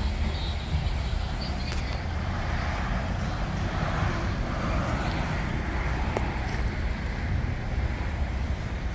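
Road traffic: car engines and tyre noise from cars driving through an intersection, swelling as one car passes close about four seconds in.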